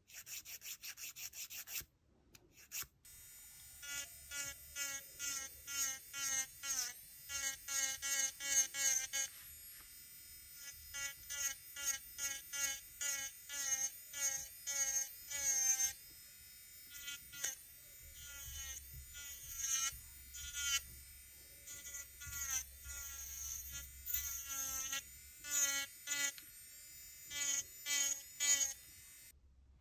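A few quick rasping strokes of a nail file on a fingernail, then an electric nail drill (e-file) with a fine bit running at about 22,000 rpm. It whines in short bursts, two or three a second, as the bit touches and leaves the nail, the pitch bending with each touch. It cuts off near the end.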